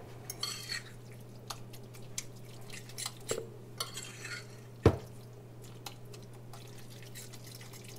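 Metal fork stirring and mashing tuna salad in a ceramic bowl: scattered clicks and scrapes of the fork on the bowl, with the wet, mayonnaise-soaked mixture squishing. One louder knock of the fork against the bowl comes about five seconds in.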